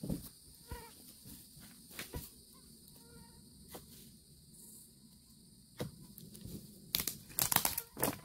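Mosquitoes whining faintly in short passes near the microphone. Crackles and rustles of plastic litter and a trash bag, loudest near the end as a grabber drops trash into the bag.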